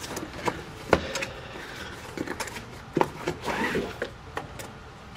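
A cardboard product box being opened by hand: a few sharp knocks and scrapes of cardboard, then a fabric drawstring bag rustling as it is pulled out of the box.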